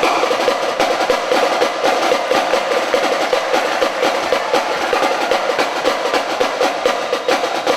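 A long, loud, unbroken drum roll of rapid strokes.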